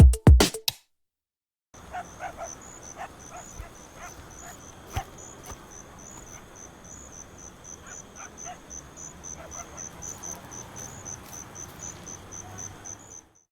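The song's music cuts off under a second in; after a short silence, a cricket chirps steadily, about three short high chirps a second, over faint clicks and a low rustle, stopping just before the end.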